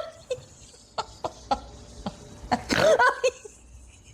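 A person laughing in short snorting bursts, with a louder cackling burst about three seconds in.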